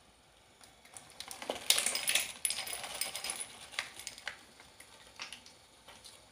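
Dry cat kibble poured from a plastic bag into a glass bowl: a dense, rattling patter of pellets hitting glass about a second in, fading out after a couple of seconds, followed by a few separate clicks.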